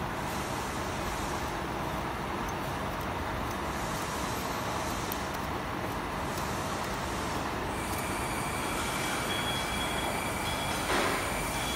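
Steady machinery noise in a factory workshop. A faint high whine joins about two-thirds of the way through, and there is a short knock near the end.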